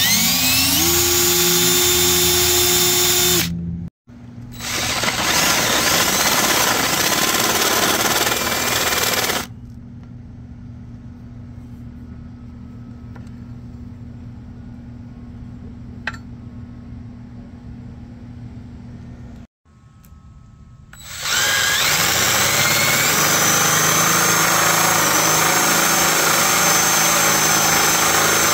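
Cordless DeWalt drill boring through thick steel angle iron, heard in several spliced stretches: each time the motor winds up with a rising whine and then runs steadily as the bit cuts the steel. A quieter stretch in the middle holds only a low steady hum.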